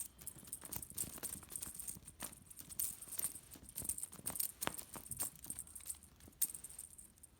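Light, irregular rattling, rustling and clicking of a tangled cat toy being handled and worked loose by hand.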